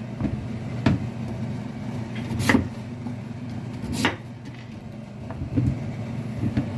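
Kitchen knife cutting through sweet potato and knocking on a wooden cutting board: three sharp knocks about a second and a half apart, over a steady low hum.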